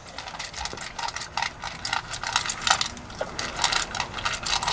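Dog eating from a metal bowl: a quick, irregular run of chewing and lapping clicks, with metal clinks against the bowl.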